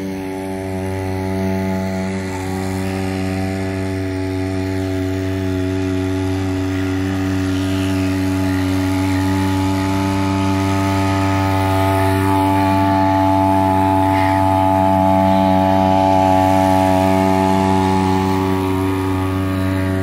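Small 2hp two-stroke outboard motor running steadily at high throttle with an even, high-pitched buzz, growing louder and then easing slightly as the boat passes.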